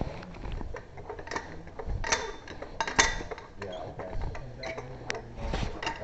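Irregular metallic clicks and creaks of hand tools being worked at a car wheel during a tire change, with faint voices in the background.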